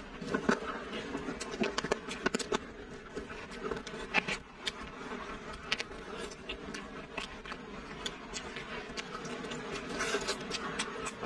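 Eating sounds of someone biting into and chewing chili-coated braised pork shank meat: irregular mouth smacks and clicks, the sharpest about half a second, two seconds and four seconds in, over a faint steady hum.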